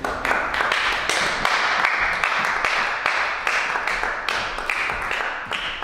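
Audience applauding: dense clapping that starts at once and tapers slightly near the end.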